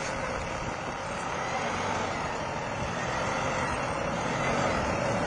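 A truck's engine running hard as it tries to drive out of deep snow, growing a little louder near the end.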